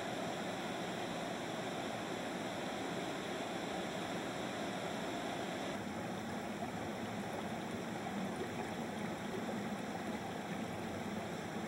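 Beaver River waterfall and cascades rushing over rock: a steady noise of falling water. It turns a little duller about six seconds in.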